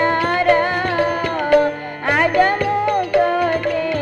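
Traditional Odia accompaniment music for Ravana Chhaya shadow puppetry: a sung melody with sliding pitches over steady hand-percussion strikes.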